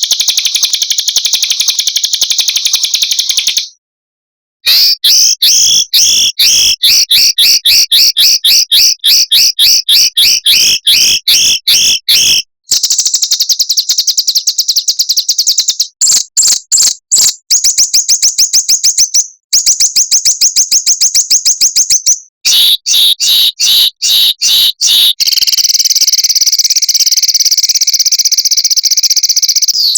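Small songbirds' loud, high-pitched rapid trills and quick strings of sharp repeated notes, spliced together in sections with abrupt cuts and a short silence about four seconds in.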